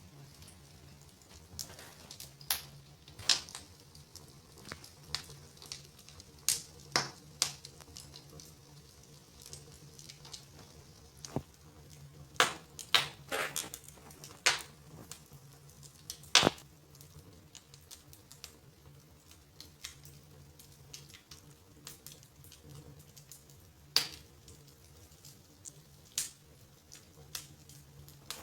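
Wood fire in a fireplace crackling, with irregular sharp pops at uneven intervals, the loudest about sixteen seconds in, over a faint low hum.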